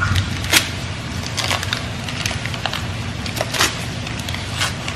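Food frying in hot grease: a steady sizzle with scattered sharp pops and crackles.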